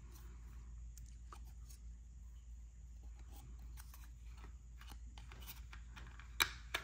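Quiet plastic handling noises as a battery pack and its wires are pushed into a toy RC car's battery compartment and the plastic battery cover is fitted, ending with a couple of sharp clicks near the end as the cover snaps into place.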